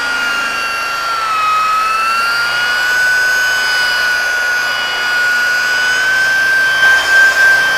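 Rotary paint buffer with a wool pad, cutting clear coat with polishing compound: a steady, high motor whine whose pitch sags slightly about a second and a half in and creeps back up.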